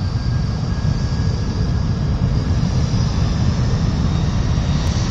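Jet airliner engines running steadily in flight: a deep, even rumble with a faint high whine above it.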